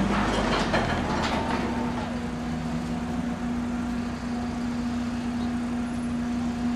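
Car engine idling with a steady hum.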